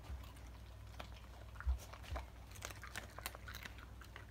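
A dog chewing and biting food, with faint irregular crunches and small clicks, and a soft low thump a little before halfway through.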